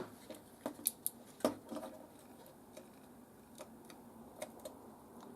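Small plastic clicks and taps as the multimeter's LCD display is pushed and shifted in its housing, several in quick succession in the first two seconds, then a few fainter ones near the end. The display is being moved to clear stray segments that stay lit, which the repairer takes for a mechanical contact issue.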